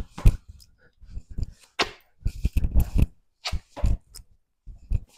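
A person doing burpees: repeated, irregular thuds and scuffs as hands and sneakered feet land and jump on a hard concrete floor.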